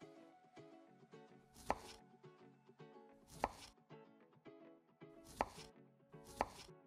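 Miniature knife chopping green bell pepper on a small wooden cutting board: four sharp knocks of the blade against the board, the first three about two seconds apart and the last coming a second after the third.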